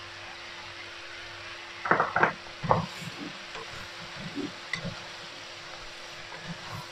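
Wooden spoon stirring chunks of vegetables in a metal pressure cooker: a few loud clunks about two seconds in, then softer knocks and scraping, over a steady sizzle of the vegetables cooking in butter and oil.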